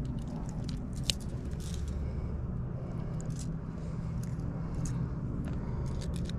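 Scattered small clicks and scrapes from fishing pliers and a crankbait's treble hooks as the hooks are worked out of a smallmouth bass's mouth, the sharpest click about a second in. A steady low hum runs underneath.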